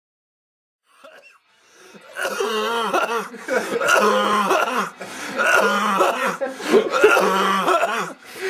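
A man's loud, wordless vocal sounds in about four drawn-out bursts, starting about two seconds in: rough, cough-like gagging noises, with laughter.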